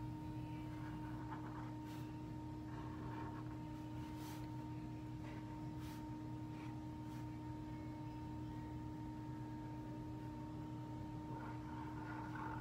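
A steady hum of several constant tones, one low and one higher, with faint scratches of a felt-tip marker drawing on paper now and then and a few light clicks.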